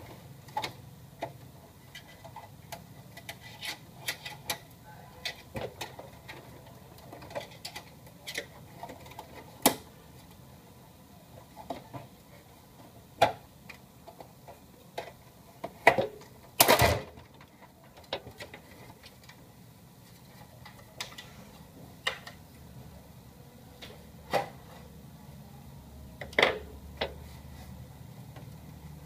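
Irregular clicks and knocks of hard plastic parts being handled on an HP LaserJet Pro M225dw laser printer, with one louder, longer rattle a little past the middle.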